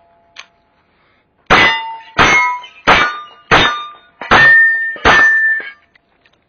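Six shots from a Chiappa Charging Rhino revolver, about two-thirds of a second apart, each followed by the clang of a struck steel target ringing.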